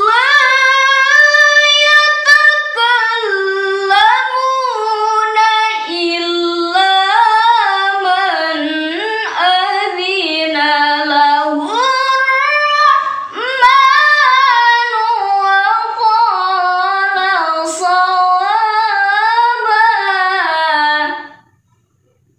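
A young woman's solo voice reciting the Quran in a melodic, sung style (tilawah), holding long, ornamented phrases high in her range. The recitation stops about a second before the end, leaving silence.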